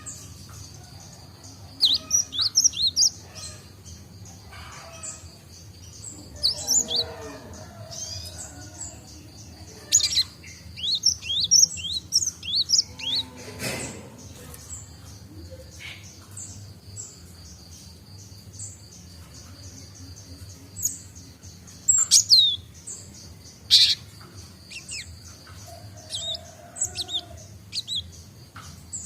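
Young cinereous tit practising its song: scattered clusters of short, high chirps and sliding notes, the unfinished song of a bird still learning. A steady high buzz runs underneath.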